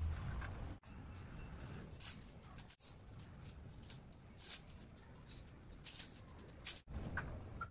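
Faint, light scrapes and taps of hand tools working against a wall, with a low room rumble underneath. The sound cuts out abruptly several times.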